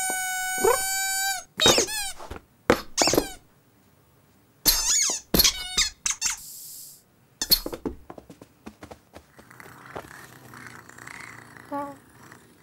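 Squeaky toy bird being chewed by a kitten: one long, steady squeak, then a run of short squeaks that bend in pitch. The squeaking stops after about seven seconds and only quieter, soft sound follows.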